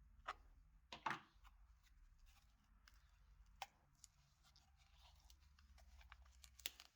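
Faint handling sounds: a few sharp small clicks and knocks, the loudest about a second in, among light ticks and rustling over a low hum.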